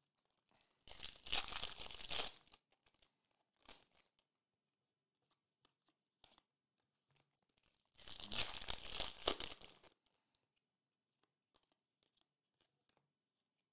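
Foil trading-card pack wrappers tearing open and crinkling, in two bursts about a second and a half long: one about a second in and one about eight seconds in, with faint clicks of card handling between.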